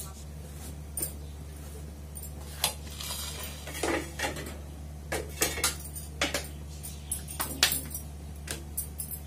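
Metal kitchen tongs, a clay griddle and a plate clinking and knocking as a roti is taken off the gas flame and the griddle is set back on the burner: a run of sharp clinks and knocks starting a couple of seconds in, over a steady low hum.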